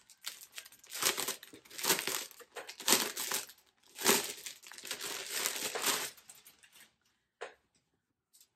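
Clear plastic bag crinkling and rustling as a folded cloth is worked out of it, in a run of irregular crinkles that dies away about seven seconds in. A couple of faint ticks follow near the end.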